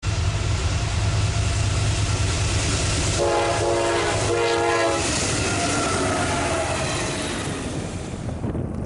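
Diesel freight train approaching with a steady low rumble. The lead locomotive sounds its multi-note air horn in short blasts about three to five seconds in.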